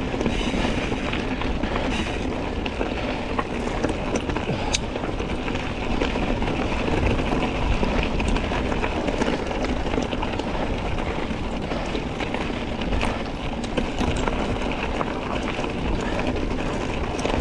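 Santa Cruz Tallboy mountain bike being ridden over a rough, rocky trail: tyres rumbling over rock and gravel, with frequent small clicks and knocks as the bike rattles over the chunk.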